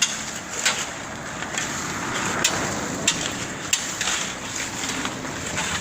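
Volumetric concrete mixer working: a steady rushing, machine noise broken by irregular sharp knocks and clicks, several to a second or so apart.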